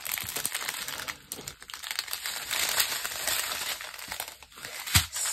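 Small plastic bags of diamond painting drills crinkling as they are handled and counted, with a single sharp click near the end.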